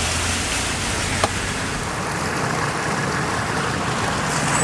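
Steady rushing of floodwater running through the yard, with a low hum underneath and one sharp click about a second in.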